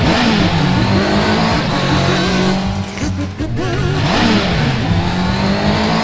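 Cartoon sound effect of a car engine revving with tyres squealing, its pitch sliding down and up, in two runs with a short break about halfway through.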